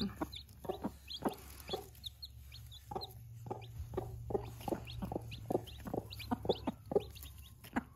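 Mother hens clucking in short, repeated calls as they peck at watermelon, the food call that shows chicks what to eat, while chicks give frequent short high peeps.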